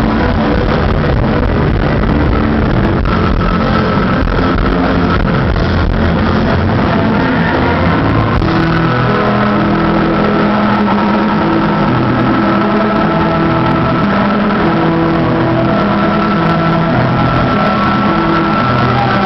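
Rock band playing live: loud distorted electric guitars over bass and drums in an instrumental passage with held guitar notes, heard through the concert PA.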